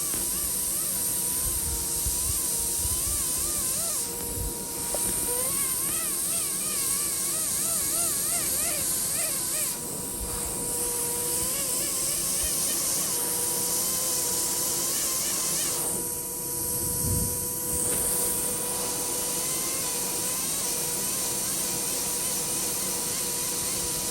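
Pneumatic air pen (air scribe) buzzing as it chips rock matrix off a Jurassic ammonite, its pitch wavering, over a high hiss of air. The hiss drops out briefly a few times.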